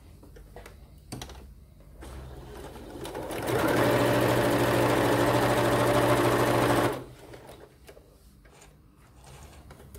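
Electric sewing machine stitching a seam through two pieces of cotton fabric: it speeds up over about a second, runs steadily for about three seconds, then stops abruptly.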